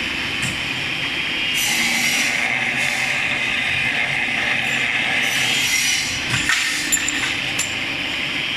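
A CNC cutting machine running, a steady rasping noise with a brighter hiss that swells every few seconds.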